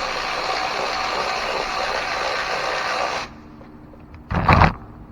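Power ratchet running steadily for about three seconds, spinning out the throttle body's 8 mm bolts, then stopping. About a second later comes a single loud knock.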